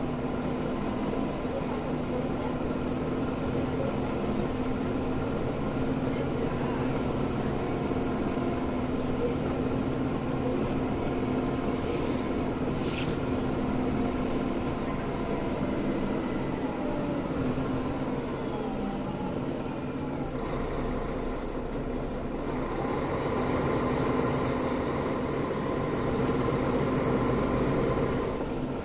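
Interior sound of a Mercedes-Benz O530G Citaro G articulated city bus on the move: the diesel engine and drivetrain run steadily, easing off about two-thirds through, then getting louder toward the end. Two short sharp clicks come just before the middle.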